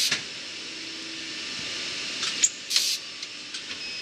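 POLAR guillotine paper cutter working through a cut cycle: a faint hum, a few sharp clicks, and a short hiss of air about three seconds in.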